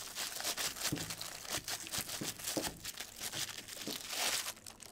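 Thin clear plastic bag crinkling and crackling in irregular bursts as it is pulled open and peeled off a camera by hand.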